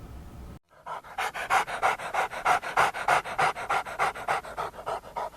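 A dog panting quickly and evenly, about four to five breaths a second, starting after a brief silence and stopping just before the end.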